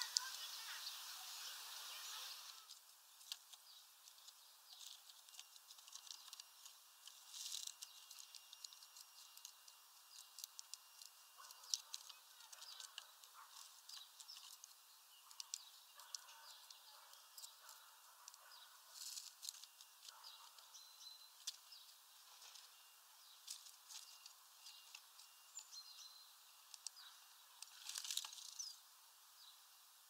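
Raindrops tapping irregularly on a clear plastic bird-feeder roof, as scattered sharp ticks over a faint hiss, with a few faint high bird chirps.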